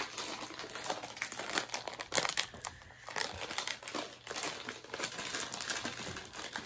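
Plastic candy bag of Crush orange Twizzlers crinkling as it is handled and opened, an irregular run of crackles and rustles.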